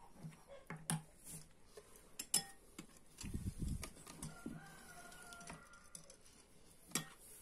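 Metal spoons tapping and clinking against glass bowls of sauce as they are stirred and set in place: a few light, separate clicks, with a dull low thump about three seconds in.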